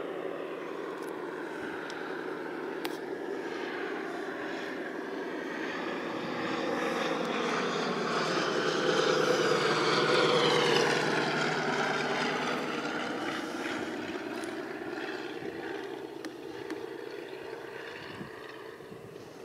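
Propeller biplane's piston engine in a flypast overhead, growing louder to a peak about halfway through and then fading as it moves away.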